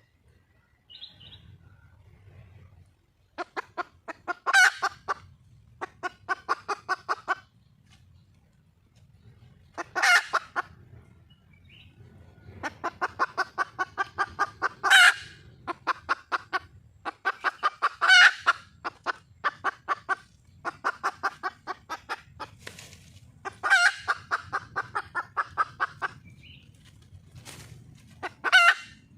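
A wild junglefowl hen cackling in about six bouts of rapid clucks, each rising to one louder drawn-out note, presented as a hen calling for a male. A faint low hum runs underneath.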